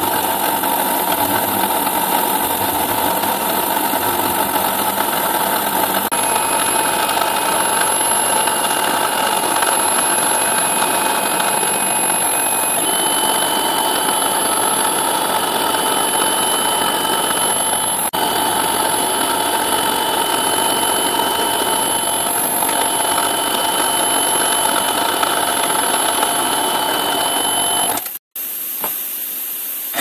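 CNC milling machine with an end mill running and cutting a shallow pocket in a metal plate: a steady machining noise with a high whine. About 28 seconds in it breaks off for a moment and comes back quieter.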